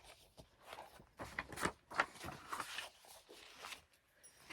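Plastic sleeve and thin paper cards being handled, in short, scattered rustles and crinkles.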